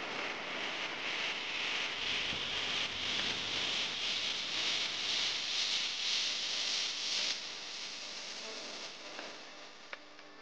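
A steady, high-pitched hiss with no music, loudest from about a second in until it drops away sharply around seven seconds in.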